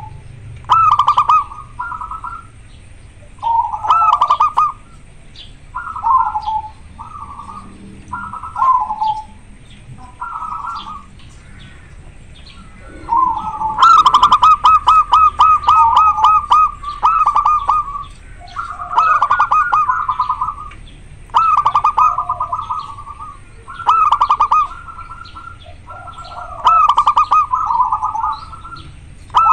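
Zebra dove (perkutut) cooing in short repeated phrases every couple of seconds, with a longer run of rapid staccato notes about halfway through: vigorous song from a bird in strong breeding condition.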